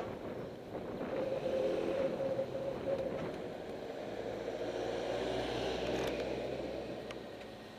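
Car driving with a failed front wheel bearing: a steady whine over the tyre and road noise for the first few seconds, then a low hum that swells and fades away near the end, the noise of the blown bearing.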